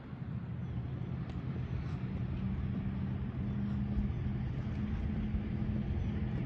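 A motor vehicle's engine running with a steady low hum that grows slightly louder.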